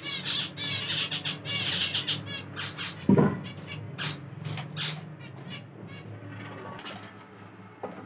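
Aviary birds, cockatiels among them, calling: a dense run of quick chirps for about three seconds, a loud burst about three seconds in, then scattered calls, over a steady low hum.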